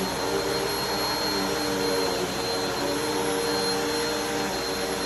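Bissell vacuum cleaner running steadily on carpet: an even motor drone with a steady high-pitched whine.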